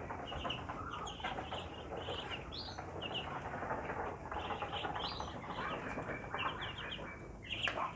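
Young Muscovy ducks peeping over and over in short high calls, over a steady rustle of the birds feeding.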